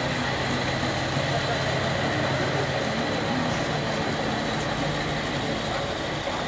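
Engine of an off-road trial truck running steadily at low revs as the truck crawls over steep loose scree.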